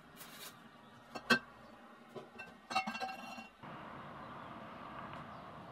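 Plastic wrap crinkling and a sharp click as a container of Evapo-Rust is unwrapped, then a short run of ringing clinks as the steel file is lifted out. After that only a steady hiss remains.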